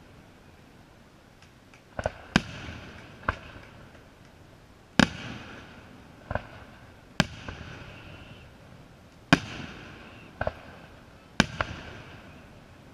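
Aerial firework shells bursting: about nine sharp bangs at irregular intervals, some in quick pairs, each trailing off in a rolling echo.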